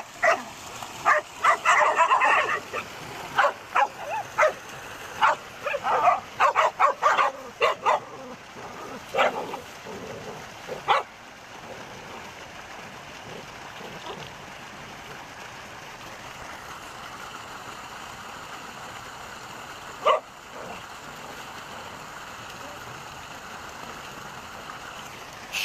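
A dog barking and yelping in a rapid run of short sharp calls for the first ten seconds or so, then a steady background hiss with one more call about twenty seconds in.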